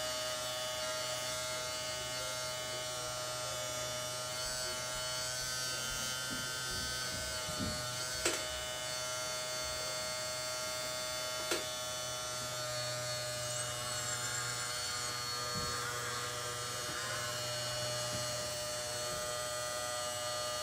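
The electric hydraulic pump of a scale RC Caterpillar M322D mobile excavator runs with a steady whine of many tones while the boom and arm are worked. Two sharp clicks come a few seconds apart near the middle.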